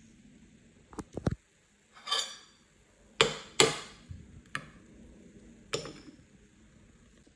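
Metal spoon knocking and scraping against a ceramic soup bowl and saucer while stirring: a quick cluster of clinks, then several short scrapes about a second apart.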